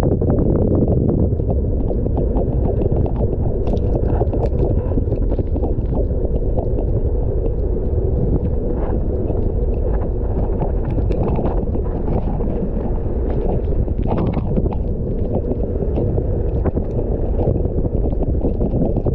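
Wind buffeting the microphone of a mountain bike rider's point-of-view camera during a fast ride on a wet dirt road, a steady low rumble. Over it, frequent small clicks and knocks from the bike and tyres going over bumps.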